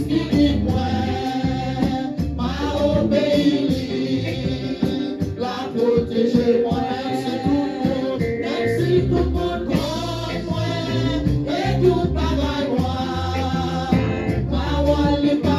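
Gospel praise song sung by a mixed team of men and women through microphones, over amplified instrumental backing with a bass line and drums.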